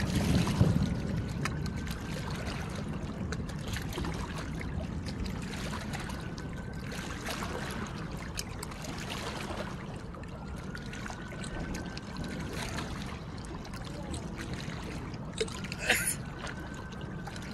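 Lull between fireworks salvos: low crowd murmur and water lapping at the river's edge, with scattered faint distant pops. One sharp firework bang near the end.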